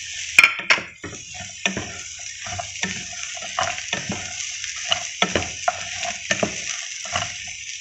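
Cut green beans sizzling in hot oil while a wooden spatula stirs and tosses them in the pan, giving irregular scrapes and knocks over a steady hiss. A sharp knock about half a second in is the loudest moment.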